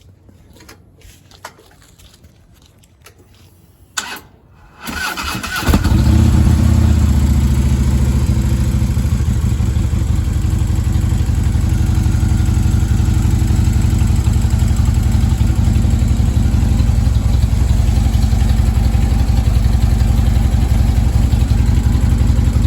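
A click, then a Harley-Davidson Road Glide Special's V-twin engine cranks briefly on its starter and catches about five seconds in. It then idles steadily and loudly.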